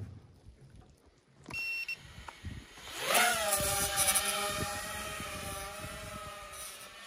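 A short electronic beep, then the Stark FPV quadcopter's motors and propellers whine up sharply as it takes off about three seconds in. The pitch drops and settles to a steady whine that fades as the quad climbs away.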